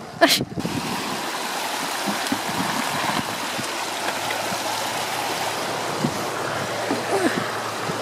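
Steady rush of a stream's running water, with a sharp knock just after the start.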